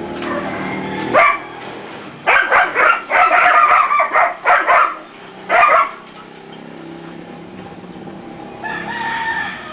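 Rooster crowing loudly in one long, broken crow of about three and a half seconds, with a fainter call near the end.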